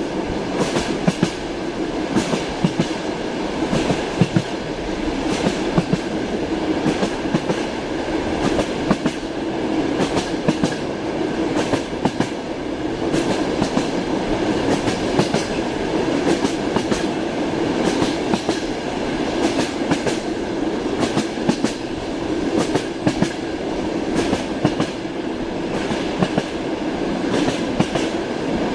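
Train wheels clicking over rail joints in quick clusters over a steady low rumble, heard from inside a passenger train's sleeper compartment.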